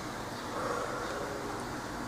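Steady low background noise, room tone, with only a faint soft sound a little before the middle.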